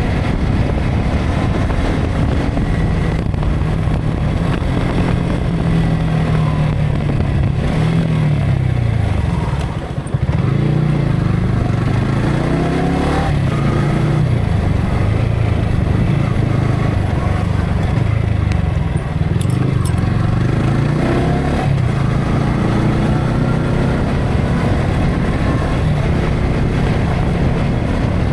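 Yamaha R15 V3's single-cylinder engine running under way, its pitch rising and falling several times with the throttle, with a brief drop in level about ten seconds in. Heavy wind noise on the action camera's built-in microphone runs over it.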